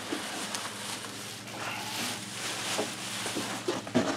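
Bubble wrap and plastic packaging rustling and crinkling, with cardboard box flaps scuffing, as a boxed ultrasonic cleaner is lifted out of its shipping carton.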